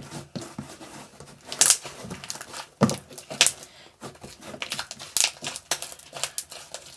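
Slime mixed with instant snow being kneaded and stretched by hand, giving irregular crinkly crackles and wet snaps, a few of them much louder than the rest.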